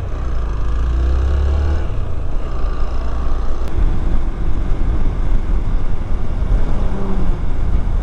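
Hero Xpulse 200T single-cylinder motorcycle riding along at road speed: engine and wind and road noise. A deeper rumble is heard for the first two seconds.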